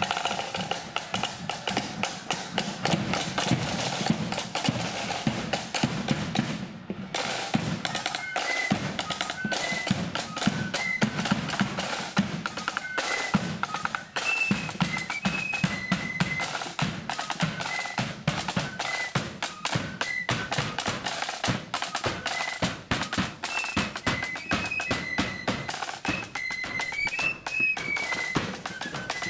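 Marching flute band playing: snare drums and a bass drum beat a marching rhythm alone at first, break off briefly about seven seconds in, and then the flutes come in with a high tune over the drums.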